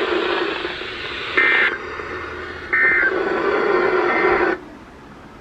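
Emergency Alert System end-of-message data tones from a weather radio broadcast: three short, harsh digital squawks about a second and a quarter apart, over a steady hiss and hum from the receiver. The hum cuts out about four and a half seconds in, leaving faint hiss, as the alert transmission ends.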